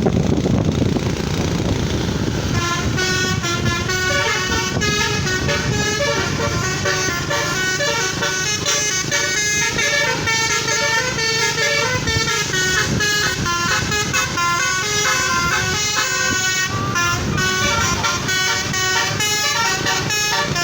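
Telolet multi-tone air horn on a bus playing a fast tune of short stepped notes, starting about two and a half seconds in over the low rumble of the engine.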